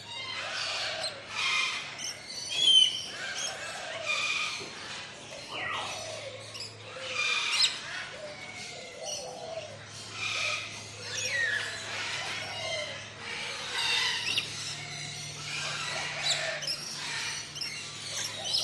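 A dense chorus of many birds calling and chirping over one another, short notes and gliding whistles overlapping continuously, with one louder call about three seconds in.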